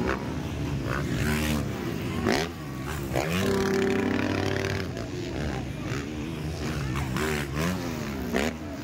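Motocross dirt bike engines revving hard and dropping off over and over as riders take a jump, the pitch sweeping up and down; about three and a half seconds in, one engine holds a high, steady pitch for about a second.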